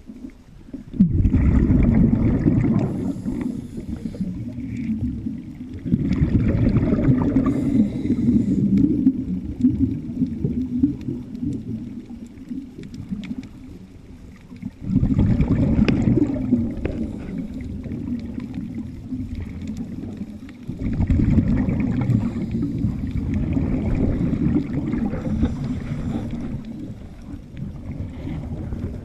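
A scuba diver's exhaled bubbles gushing from the regulator underwater, in four long bubbling stretches of several seconds each, with short quiet pauses between them where the diver breathes in.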